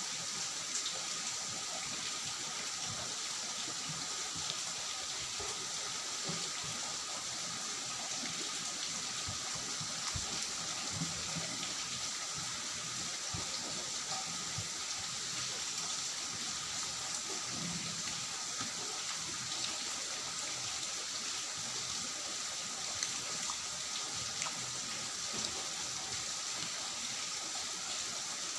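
Steady hiss of background noise, with faint soft chewing and mouth sounds and occasional light clicks of fingers mixing rice and pumpkin curry on a steel plate.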